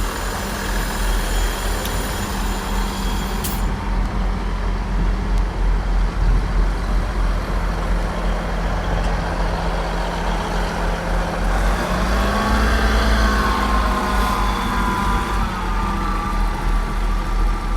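South Western Railway Class 159 diesel multiple unit moving at low speed, its diesel engines running with a steady low drone. About twelve seconds in, the engine note rises and a higher whine climbs with it as the unit takes power.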